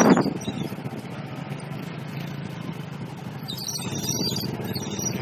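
Small motorcycle engine running steadily under way, with a loud rush of noise on the microphone right at the start.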